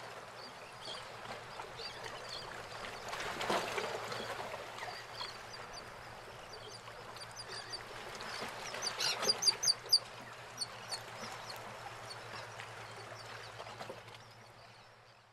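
Shoreline ambience on a tidal oyster flat: water washing and trickling, with scattered bird calls and a quick run of sharp clicks about nine to ten seconds in. It fades out near the end.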